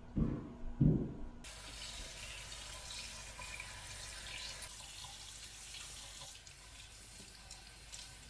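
Kitchen faucet running into a stainless-steel sink, the stream splashing over raw shrimp in a metal mesh colander as they are rinsed by hand; the water comes on abruptly about a second and a half in. Before it, a couple of dull thumps.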